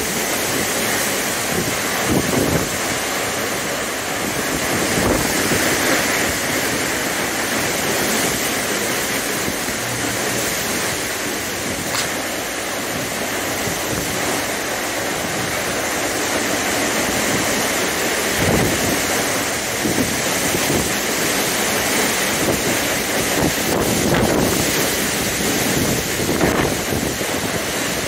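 Derecho thunderstorm's high straight-line winds, with rain, making a steady loud rush. Gusts buffet the microphone several times, most in the last few seconds.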